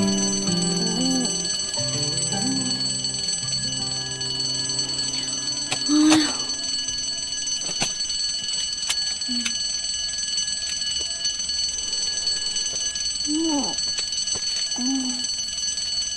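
Mechanical twin-bell alarm clock ringing steadily, with a few short sleepy vocal sounds over it. Soft background music plays in the first few seconds.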